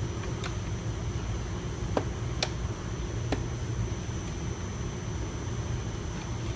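Door trim panel being pried off, its plastic clips giving a few sharp clicks over a steady low hum; the loudest click comes about two and a half seconds in.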